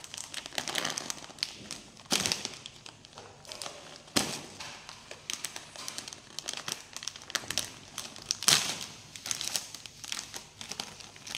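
Plastic snack bag crinkling as a toddler's hands pull and squeeze its top, trying to tear it open: irregular crackles, the sharpest about two, four and eight and a half seconds in.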